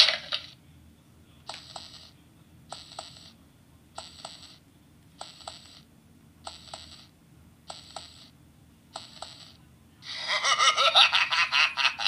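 Handheld electronic spooky sound-effects toy playing recorded effects through its small speaker: seven short metallic clinks at an even pace of a little over one a second, then, from about ten seconds in, a louder pulsing effect.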